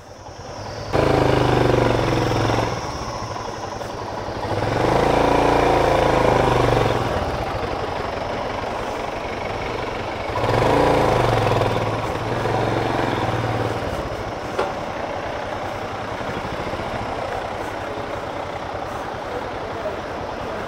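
Royal Enfield Himalayan's 411 cc single-cylinder engine pulling under load on a rocky off-road track. It revs up in three surges, about one, five and ten seconds in, and falls back between them. There is a single click about fifteen seconds in.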